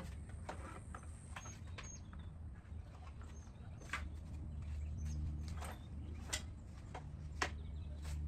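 Scattered light clicks and taps of hand tools and metal parts being worked on an engine, a few sharp ones in the second half, over a steady low hum.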